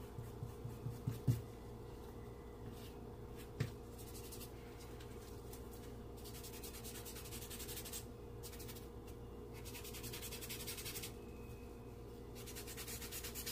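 Charcoal scratching and rubbing across drawing paper in a run of shading strokes, each lasting about a second, with a few light taps in the first few seconds.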